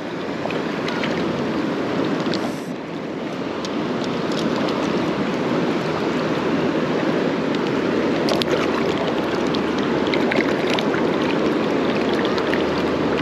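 Steady rush of a flowing trout stream, with a few light clicks and taps on top.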